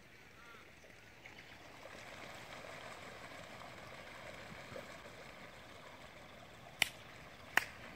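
Faint rushing, splashing noise of a flock of waterbirds pattering across the river surface, swelling for a few seconds and then easing off, with two sharp clicks near the end.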